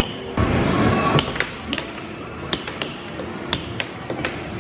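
Air hockey puck clacking against the mallets and the table's rails: a quick, irregular string of sharp hits, a few each second.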